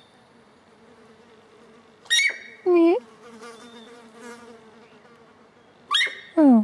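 Sika deer hind mew calls, twice: each a short high squeal followed by a lower mew that falls in pitch. The pairs come about two and six seconds in, over a faint steady insect buzz.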